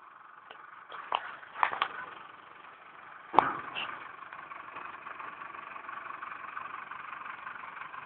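Digger's engine running steadily, with a few sharp knocks in the first few seconds, the loudest about three and a half seconds in.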